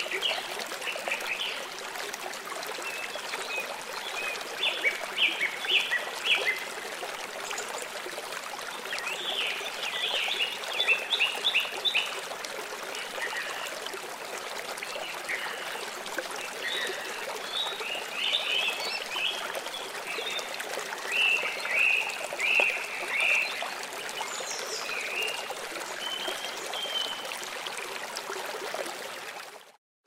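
Nature ambience track of steadily running water, with short clusters of quick chirping calls every few seconds. The sound cuts out briefly at the very end.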